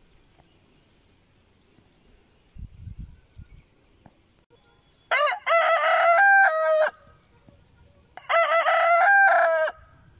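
A rooster crowing twice, each crow lasting about one and a half seconds and falling in pitch at its end. The first starts about five seconds in and the second about three seconds later.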